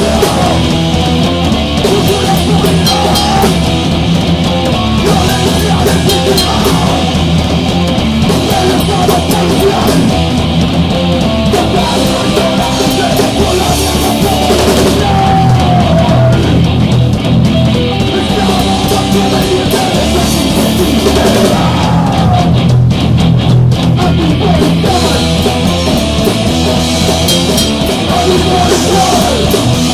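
Punk rock band playing loud and steady, with electric guitar and a drum kit, in a rehearsal recording.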